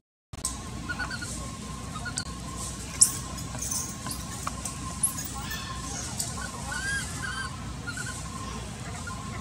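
Baby macaque giving short, arched squeaky calls, several in quick succession about six to seven seconds in, over a steady faint background tone. A sharp click about three seconds in is the loudest moment.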